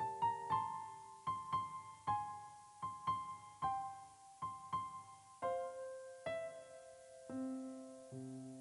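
Gentle piano background music: a slow melody of single struck notes, each ringing and fading, with lower notes joining near the end.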